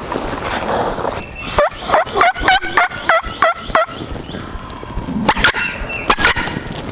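Wild turkey yelping: a run of about eight evenly spaced yelps, each note breaking down and back up in pitch, about three a second, followed near the end by two short sharp notes about a second apart.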